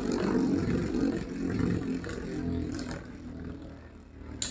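Two metal Beyblade spinning tops, Galaxy Pegasis and Sagittario, whirring and clattering against each other, fading steadily as they lose spin. A sharp click near the end.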